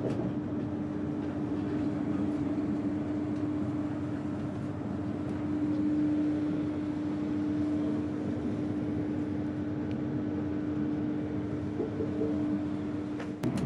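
Passenger train heard from inside the carriage while running: a steady rumble with a constant low hum, and a couple of short clicks near the end.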